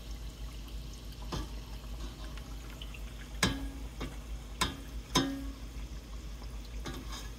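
Oil sizzling steadily as maandazi deep-fry in a stainless steel pot. A wire-mesh skimmer clinks sharply against the pot about five times as the pieces are turned, and the two loudest clinks ring briefly.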